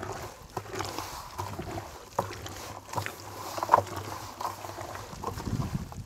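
Hands sloshing and squelching in a wet mash of fruit, broken eggs, jaggery and water inside a plastic drum, with irregular splashes and small clicks.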